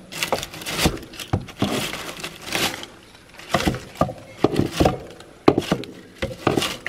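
A long metal tool raking packed dry leaves out of a clogged plastic Leaf Eater rain head: irregular scraping and crackling of dry leaves, with sharp clicks of metal against the plastic housing.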